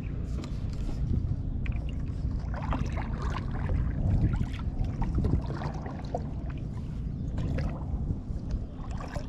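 Water sloshing and splashing close by in irregular short strokes, over a steady low rumble.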